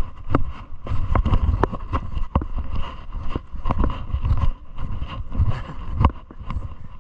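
Wind gusting on the microphone in a low rumble, with footsteps on a gravel trail landing at irregular intervals about a second apart.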